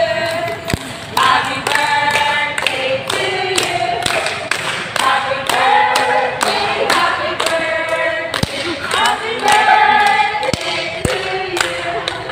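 A group of people singing together, with hand clapping in a steady beat of about two or three claps a second.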